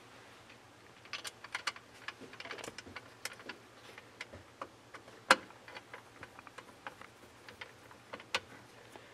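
Light, irregular metal clicks and ticks as a small screwdriver turns the retaining screw into the metal knob of a battery disconnect switch, with one sharper click about five seconds in.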